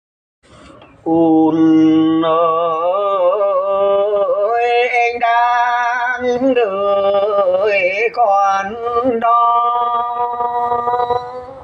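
Hát Mường Muong folk singing: a single voice drawing out one long, wordless vowel line that wavers and slides in pitch. It starts about a second in, after a moment of silence.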